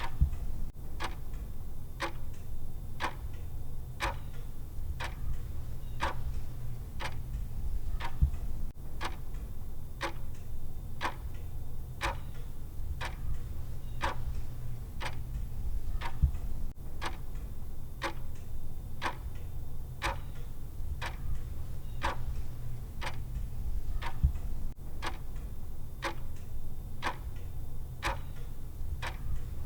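Clock-style ticking, about two ticks a second, over a steady low hum, with a slightly louder tick roughly every eight seconds.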